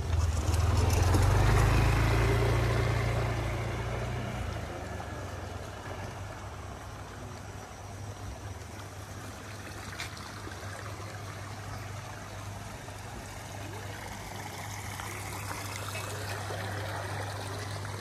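A motor vehicle passes close and fades away over the first few seconds. After that comes a steady low hum, with water trickling in a channel beside the path.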